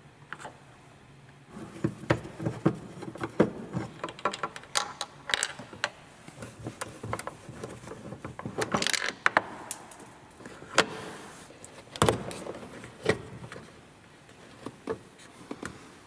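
Irregular plastic and metal clicks, taps and scrapes of a screwdriver working out the screws behind the plastic cover of a car's interior door handle, then the plastic handle housing being worked loose from the door panel.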